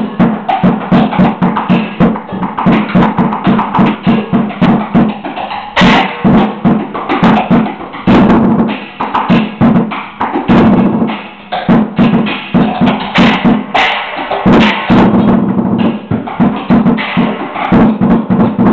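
Fast, continuous drumming on a homemade junk drum kit: drumsticks beating plastic buckets, a plastic pot and wooden pads, with splashes from flat metal discs used as cymbals. The strikes come several times a second, steady and loud.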